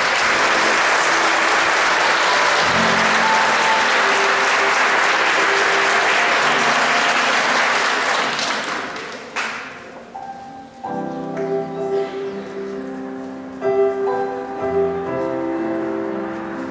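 Audience applauding over background music. The clapping dies away about nine seconds in, and the music plays on alone.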